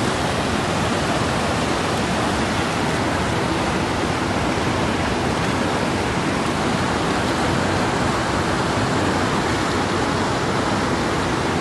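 Fast mountain river rushing over rocks in white-water rapids, a loud, steady roar of water.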